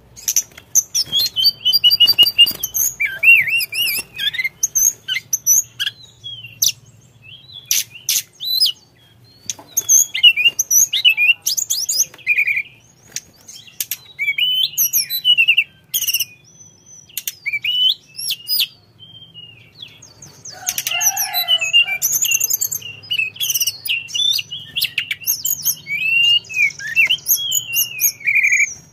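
A caged tledekan gunung, a blue-and-orange flycatcher, sings a long, varied, chattering song. It runs rapid high whistles, slurred rising and falling notes and fast trills, broken by sharp clicks and brief pauses.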